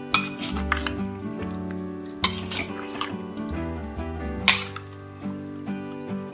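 A steel ladle clinking and scraping against a stainless steel pot while stirring sliced carrots, with several sharp clinks, the loudest about two seconds and four and a half seconds in. Background acoustic guitar music plays underneath.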